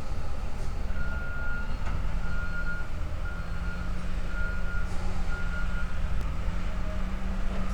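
A vehicle's reversing alarm beeps five times at about one beep a second over a steady engine rumble.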